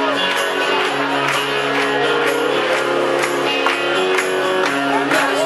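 Live band playing, with drums keeping a steady beat under sustained guitar and bass notes.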